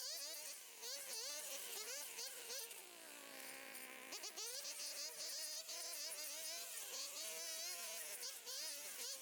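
Small two-stroke engine of a gas brush cutter running with a high buzzing whine, its pitch wavering as the throttle and load change. The revs sag for about a second midway, then pick up again.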